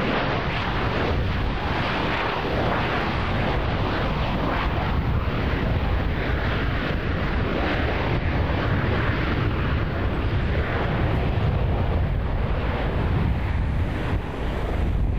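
Four Pratt & Whitney R-4360 Wasp Major radial engines of a Boeing C-97G Stratocruiser running steadily as the four-engine piston airliner rolls out along the runway after landing.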